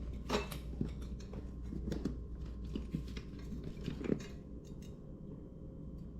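Scattered small clicks and clacks of metal scooter parts being handled and fitted by hand, over a low steady hum.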